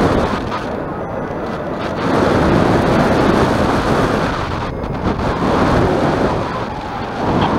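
Wind buffeting a microphone carried by a paraglider in flight: loud, rushing noise that swells and eases in gusts.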